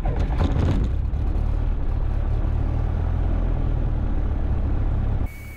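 Cessna 177 Cardinal's four-cylinder Lycoming engine and propeller running at idle, just after being started: a steady low drone. Near the end it cuts off abruptly to a much quieter hum with a faint high steady tone.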